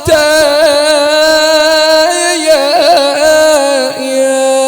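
A man's voice chanting an Ashura lament for Imam Husayn, unaccompanied, drawing out one long note with a short wavering ornament partway through.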